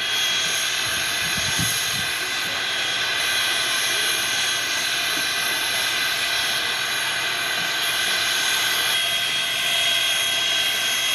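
Canadian National 89, a 2-6-0 steam locomotive, standing with steam escaping in a steady, loud hiss with a high whine through it. A thin high tone strengthens about nine seconds in.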